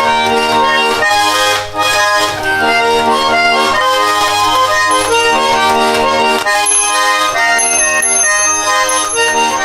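An old Saratov garmon (Russian button accordion) played solo, a tune with sustained chords changing every half second or so. Its small built-in bells begin ringing about halfway through and grow stronger near the end.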